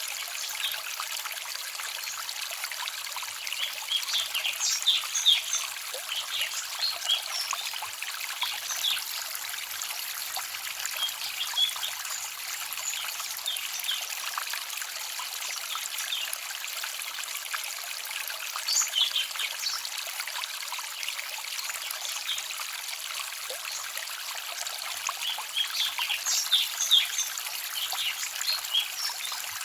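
Small forest stream trickling and babbling steadily. Small birds chirp high over the water in several short bursts.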